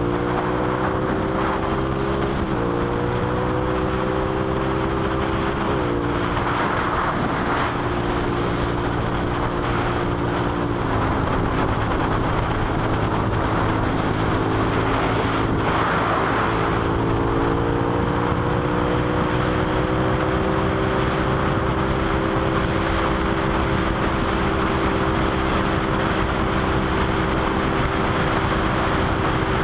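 Suzuki SV650 V-twin engine cruising at highway speed under heavy wind rush on the microphone. The engine note holds mostly steady, dropping a little about eleven seconds in and slowly rising again a few seconds later.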